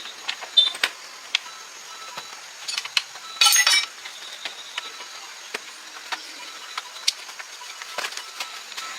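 Scattered sharp clinks and taps of tools and parts being handled during car repair work, with a short, louder rattle about three and a half seconds in.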